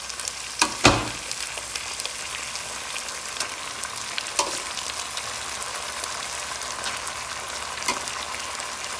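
Peas frying in butter in a pan, a steady sizzle, as cooked rice is spooned in on top. A metal spoon knocks sharply just under a second in, with lighter knocks about halfway through and near the end.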